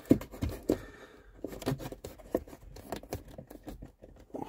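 Scattered light plastic clicks, knocks and scrapes, irregularly spaced, as a hand works the unbolted passenger-side blend door actuator loose from behind a 2010 Chevy Impala's glove box.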